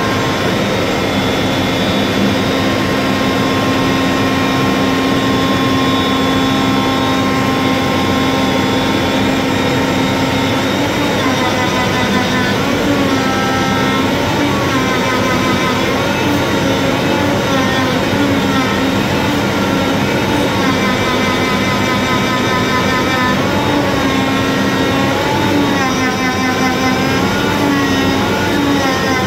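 Flatbed CNC cutter's router spindle milling 10 mm Poly plag board: a steady machine hum with a high whine, whose pitch starts to waver up and down about eleven seconds in.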